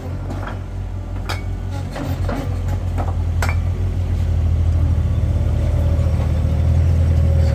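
Diesel engine of a Bobcat skid-steer loader running steadily while it carries a bucketful of bricks, with a few sharp clinks and knocks of bricks in the first few seconds. The engine grows louder near the end.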